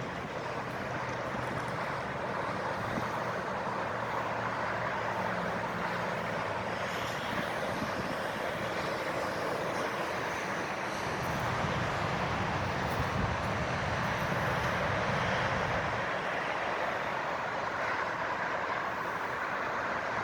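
Steady outdoor background noise, an even rushing hiss with a low hum under it, and a deeper rumble that swells about halfway through.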